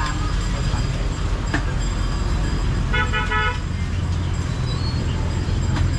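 A vehicle horn gives one short honk, about half a second long, about three seconds in, over a steady low rumble of traffic.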